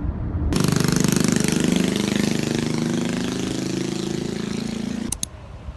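An engine running loudly with a fast, even pulse. It starts abruptly about half a second in and cuts off suddenly near the end.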